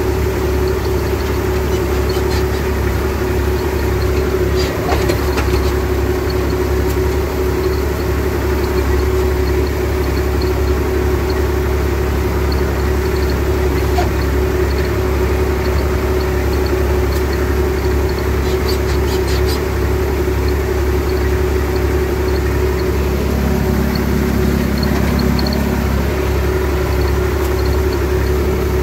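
IMT 539 tractor's three-cylinder diesel engine running steadily at working revs, heard from inside the cab while it drives a fertiliser spreader across the field.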